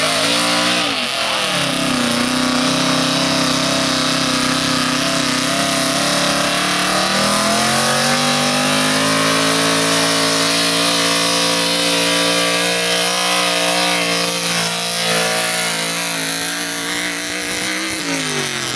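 Pickup truck engine running at high revs under full load as it drags a weight-transfer pulling sled, with dirt spraying from the tyres. The engine pitch drops about a second and a half in and again around seven seconds in, holds steady, then falls away near the end as the pull ends.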